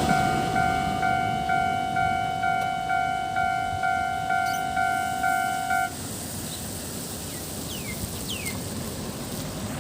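Level-crossing warning bell ringing in even, repeated dings, about two a second, then cutting off about six seconds in once the crossing clears. A faint outdoor background with a few short chirps remains.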